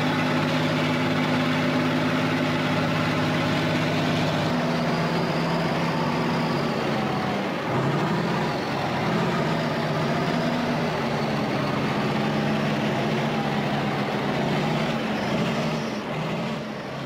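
Diesel engine of a heavy yellow Kirovets articulated tractor working under load as it drives through deep mud. It holds a steady note for the first few seconds, then its pitch rises and falls repeatedly from about eight seconds in as the throttle and load change.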